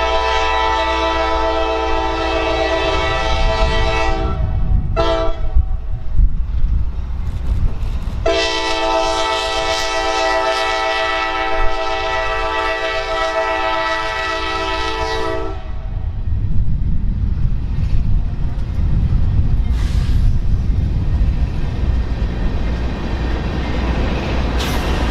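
Freight locomotive's air horn sounding the grade-crossing signal: a long blast that ends about four seconds in, a short blast, then a long blast of about seven seconds. After it, the low rumble of the freight train rolling through the crossing.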